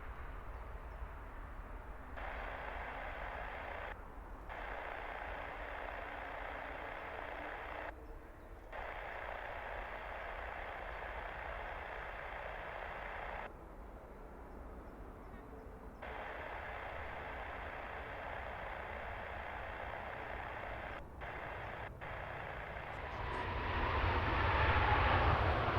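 Jet aircraft engine noise, a steady rushing sound that cuts in and out abruptly several times. Near the end it grows louder, with a whine in it.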